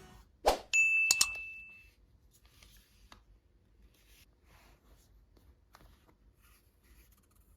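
A sharp click, then a single bright ding that rings for about a second with a couple of clicks over it. After that there are only faint light taps and rustling.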